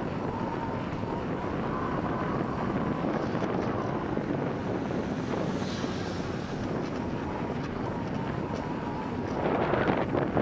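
Wind buffeting the microphone of a bicycle-mounted camera, over the hum of the bike's tyres rolling on pavement while riding. The rushing noise swells louder near the end.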